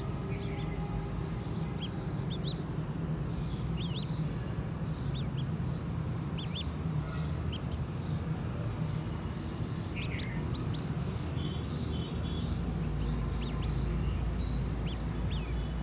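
Small birds chirping: many short, high chirps scattered throughout, over a steady low background rumble that grows a little louder about twelve seconds in.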